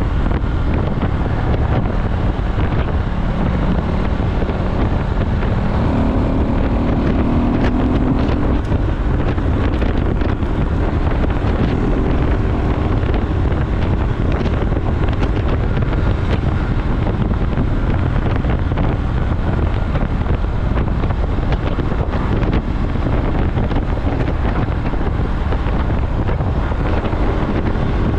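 KTM Duke motorcycle engine running under way, heavily buffeted by wind noise on the microphone. The engine note rises twice, about six seconds in and near the end, as the bike accelerates.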